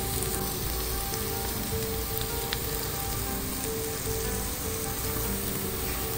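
Beef steak sizzling steadily in hot oil on a metal baking tray. Soft background music plays over the sizzle.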